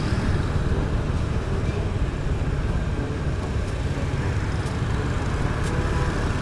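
Steady street traffic noise with a heavy low rumble, heard from among busy town traffic.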